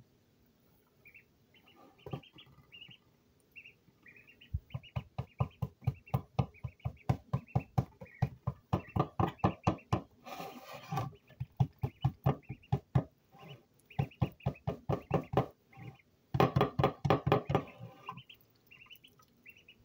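A duckling pecking crumbs off a plastic plate, its bill tapping the plastic rapidly, several taps a second, with short high peeps now and then. A brief rustling scrape comes about halfway through.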